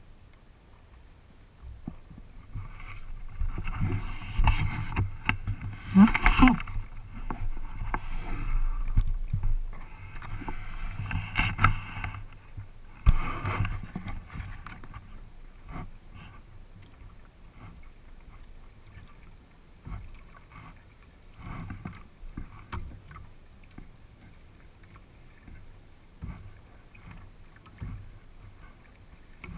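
Water splashing and lapping against the plastic hull of a Hobie sailing kayak close to the microphone. It is louder and rushing for about the first ten seconds, with a sharp knock a little later, then settles to quiet lapping with occasional small taps.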